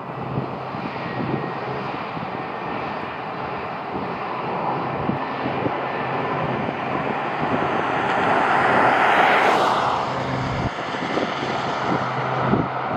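Jet airliner flying past as it comes in to land, its engine noise building to a peak about nine seconds in and then falling away.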